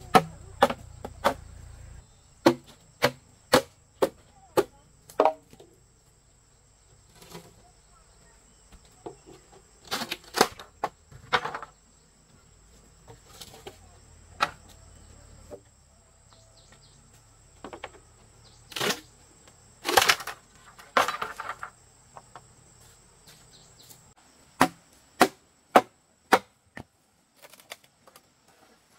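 Sharp wooden knocks and chops of a tool striking bamboo poles, coming irregularly with pauses and a few quick runs, two of them longer and rasping. A faint steady high whine sits underneath.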